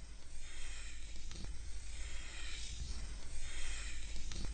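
Chalk drawing straight lines on a blackboard: a scratchy hiss that swells and fades with each stroke, about three strokes.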